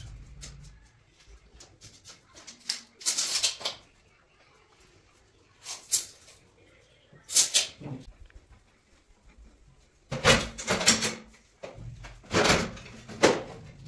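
Handling noises from measuring work and a wooden stepladder being shifted: about half a dozen short scrapes and knocks with quiet gaps between, coming thickest near the end.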